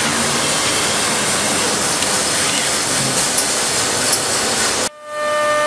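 Busellato CNC machining centre running as it routes a wooden door panel: a loud, steady rush of spindle and dust-extraction noise with a few faint high squeaks. Near the end it drops out briefly and comes back as a steady whine of several held tones.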